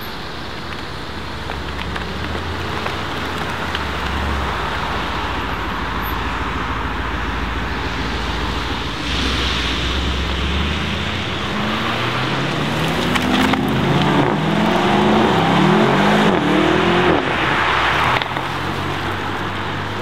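Mercedes-AMG SL63's 4.0-litre twin-turbo V8 rumbling at low revs as the car pulls away, then accelerating hard from about halfway through, the revs climbing in several quick rises one after another through the gears. The pull is loudest near the end.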